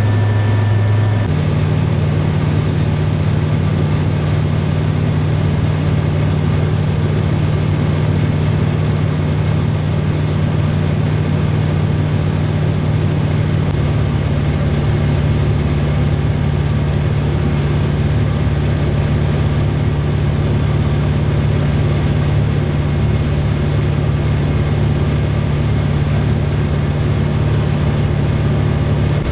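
Rotax 912 four-cylinder engine and propeller of a Remos GX light aircraft droning steadily in flight, heard inside the cabin. The drone steps abruptly to a higher pitch about a second in and then holds steady.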